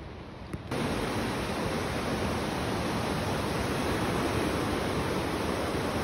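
Fast mountain river rushing past: a steady, even rush of churning water that comes in suddenly just under a second in, after a quieter stretch.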